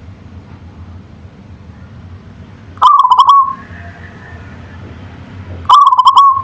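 Zebra dove (local perkutut) cooing twice, about three seconds apart: each call is a quick run of pulsed notes that settles on a short held tone.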